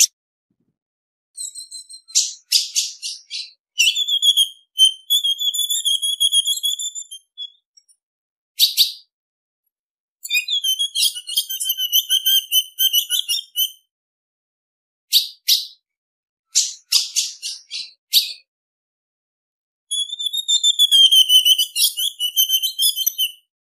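Female ultramarine grosbeak (azulão) calling: runs of sharp, high chips and wavering rapid trills lasting a few seconds each, coming in bursts with silent gaps between them.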